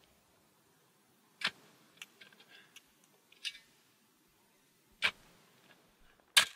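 Shovel blade chopping into dry, stony dirt: four sharp strikes about a second and a half to two seconds apart, the last the loudest, with faint clicks of loose stones between them.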